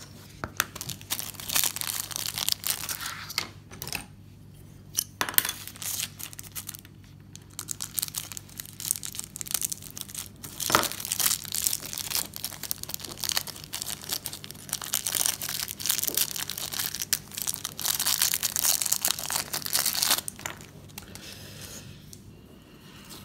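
Clear plastic parts bag crinkling and rustling as it is handled, with small clicks and taps, stopping near the end. A faint steady hum runs underneath.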